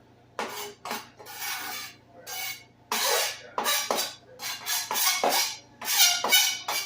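A kitchen utensil scraping and clattering against a dish in a run of short, irregular strokes, as diced seasonings are scraped in with chopped kale.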